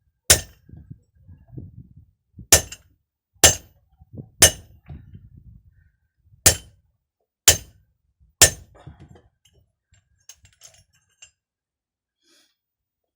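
Hammer striking the metal fitting of a hydraulic hose seven times, sharp ringing blows about a second apart with some longer pauses, followed by faint handling clicks.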